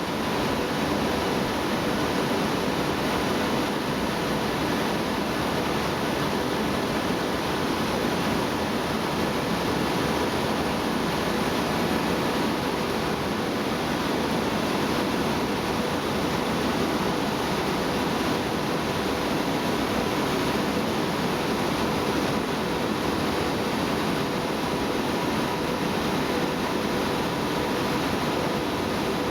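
Steady machinery noise from a polyester staple fiber production line and baler: a constant rushing din with faint steady hums in it and no sudden strokes.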